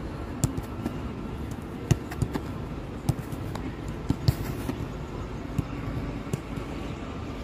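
Footballs being kicked: about a dozen short, sharp thuds at irregular intervals over a steady low outdoor rumble.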